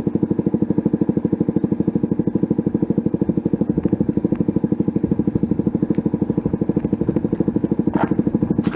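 CFMoto 300SS single-cylinder engine idling steadily through an aftermarket exhaust, an even exhaust beat of about eleven pulses a second. A brief faint rattle comes near the end.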